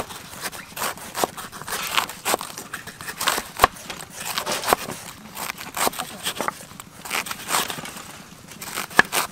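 Two kitchen knives slicing through crisp vegetables and knocking on a wooden chopping board: an irregular run of quick crisp cuts and taps.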